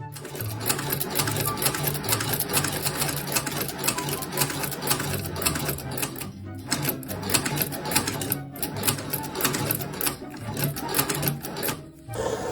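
Fast, continuous mechanical clatter of rapid clicks from a running machine, over background music with a steady bass line. The clatter breaks off briefly about six and a half and eight and a half seconds in, and again near the end.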